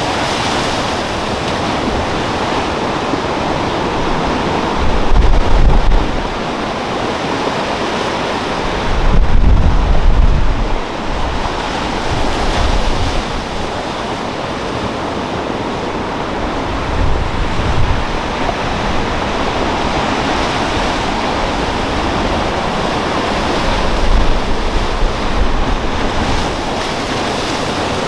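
Storm-driven rough sea surging and breaking, a steady wash of surf with strong wind. Louder low rumbling surges come four times.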